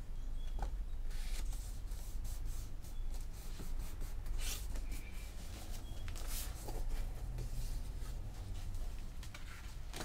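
Sheets of paper being handled by hand: short rustles and rubbing of paper against paper and the bench, several times, as a glued end paper is pressed down and the text block is picked up. A low steady hum runs underneath.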